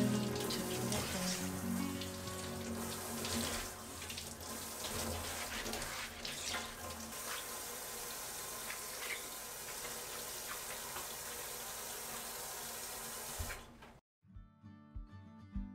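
Water running steadily from a kitchen faucet into a stainless steel sink, cutting off abruptly about a second and a half before the end.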